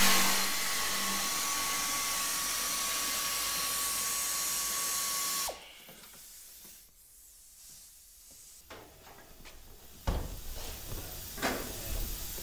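Pneumatic air ratchet running at the bolts at the base of a pickup's bench seat: a loud, steady air hiss with a steady whine for about five and a half seconds, then it cuts off sharply. A few seconds later come knocks and clunks as the bench seat is moved.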